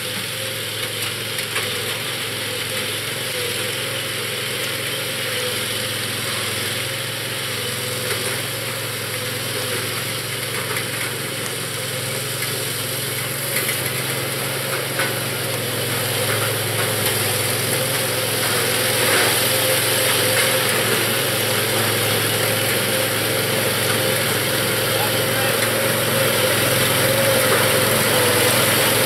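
Engine of a mini scaled tracked tank running steadily as the tank drives, growing louder over the second half as it comes closer.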